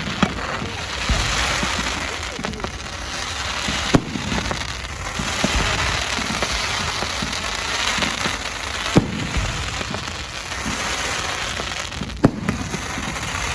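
Fireworks display: continuous dense crackling from crackle-effect shells, broken by a few sharp bangs.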